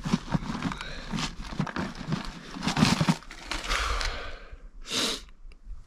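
Rummaging: rustling, crinkling and light knocks as a plastic tackle box full of lures is dug out and handled.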